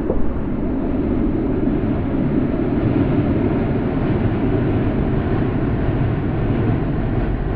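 Distant city ambience: a steady low rumble of traffic blended into one wash, with a brief knock right at the start.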